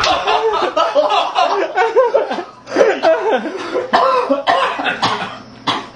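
A man coughing and choking hard on a mouthful of dry ground cinnamon that he has breathed in, with voices and laughter mixed in. The coughing breaks off briefly twice.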